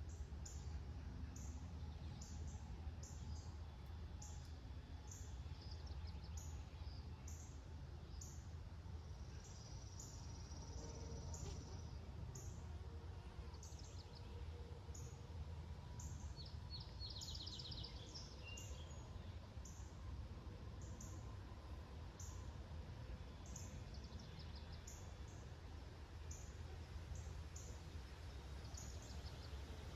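Wild birds calling outdoors: a short high chirp repeating steadily, joined by other songbird calls including a fast trill a little past the middle. Under them runs a steady low rumble of outdoor background noise.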